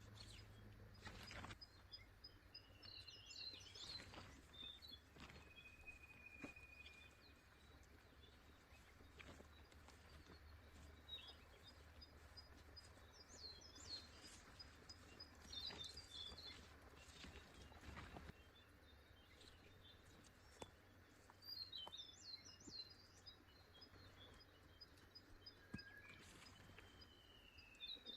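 Faint forest ambience: scattered bird chirps and short whistled calls from several birds, with occasional light clicks and taps.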